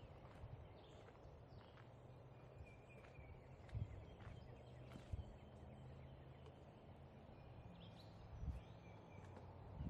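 Near silence: faint outdoor ambience with a low steady hum, a few faint chirps and a handful of soft thuds, like footsteps on a trail.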